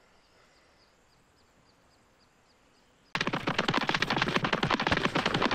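Near silence for about three seconds, then a fast rattle of sharp taps, well over ten a second, like a machine gun.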